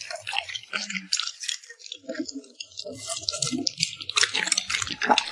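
A dog eating wet food close to the microphone: irregular wet lip-smacking and licking clicks, sparser in the middle and coming thicker again toward the end.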